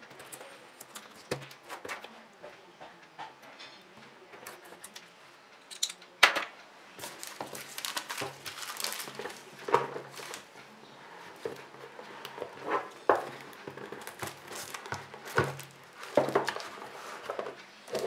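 Handling sounds of a phone box and its packaging being opened: irregular clicks, knocks and rustles, with a few sharper knocks spread through.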